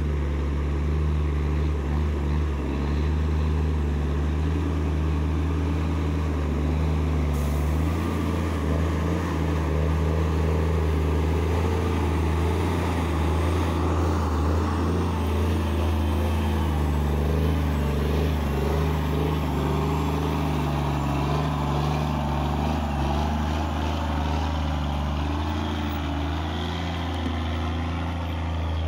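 Heavy diesel engine of a loaded logging truck running steadily at an unchanging pitch as the truck crawls past up close on a dirt road.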